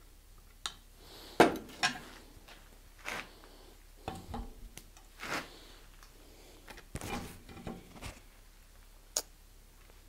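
Scattered clinks and knocks of metal hand tools being handled and set down: a pump oil can and a threading die in its die stock, as a screw blank is oiled for threading. The loudest knock comes about a second and a half in.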